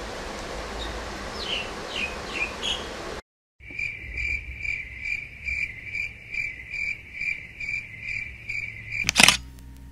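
Cricket chirping, one high note pulsing about three times a second. Before it, after a short break, there is steady outdoor hiss with a few short falling chirps, and a sharp click comes about nine seconds in.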